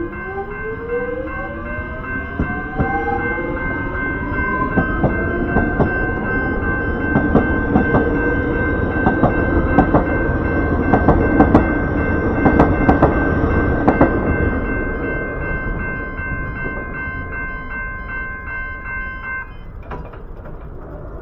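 Electric suburban train pulling out: its traction motor whine rises in pitch over the first few seconds, then the carriages go by with a rapid run of wheel clicks over the rail joints, loudest midway and easing off after. Steady high tones sound throughout and stop abruptly near the end.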